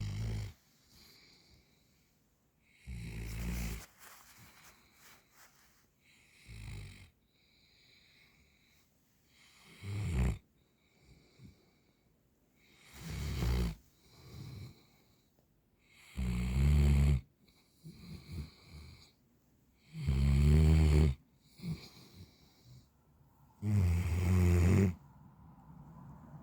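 Central Asian Shepherd Dog (alabai) snoring: about eight rasping snores, one every three to four seconds, the last three loudest, with softer breaths between them.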